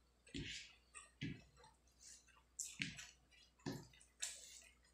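Fingers kneading rice into fish curry on a plate: several short, soft wet squelches about a second apart.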